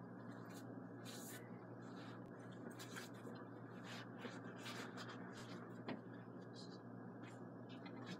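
Faint rustling and scratching of a fabric backpack being rummaged through as a phone is tucked into one of its small compartments, in short scratchy strokes over a steady low hiss.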